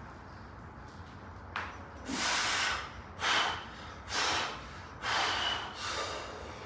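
A weightlifter's forceful breaths: about five loud, quick hissing breaths in and out through the mouth, taken while standing under a heavy barbell to brace between back-squat reps.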